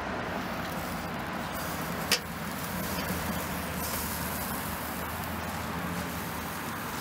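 Steady outdoor background of distant road traffic, with one sharp click about two seconds in.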